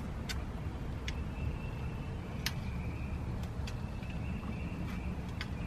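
A handful of short, sharp metallic clicks from a wrench working a transmission cooler line fitting under the truck, spaced irregularly over a low steady rumble.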